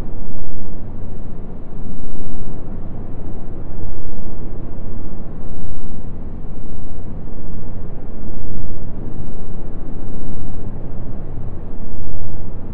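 Dubbed-in ambience: a low, rumbling noise that swells and fades about every two seconds.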